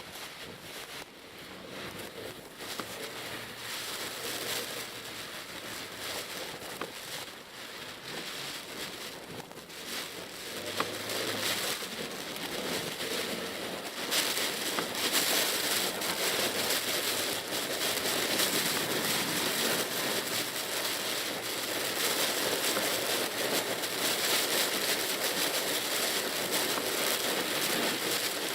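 Typhoon rain beating on a moving Pajero Mini's roof and windscreen, heard from inside the cabin, with wet-road tyre noise. The rain grows louder about halfway through.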